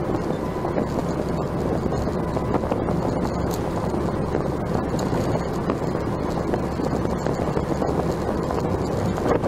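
Steady road, engine and wind noise inside a vehicle cruising on the highway at about 65 mph, an even rumble with no sudden events.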